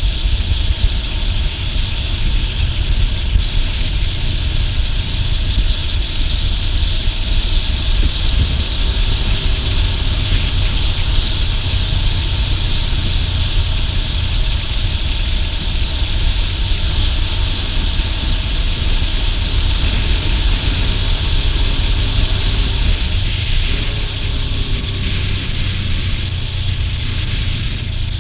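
Motorcycle riding at a steady pace, its engine running under heavy wind rush and buffeting on the camera microphone.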